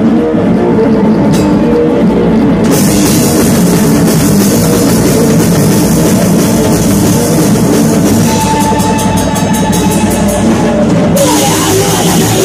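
Live rock band playing loud, with the drum kit to the fore. Cymbals come in about three seconds in, and a high note is held for a few seconds later on.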